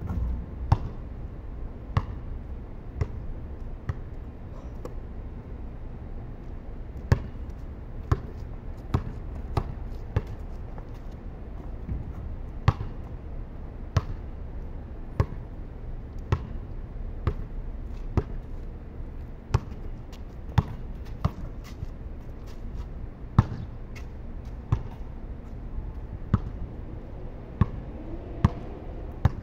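A basketball being dribbled on a concrete court, bouncing at a steady rate of about once a second, with a low steady rumble underneath.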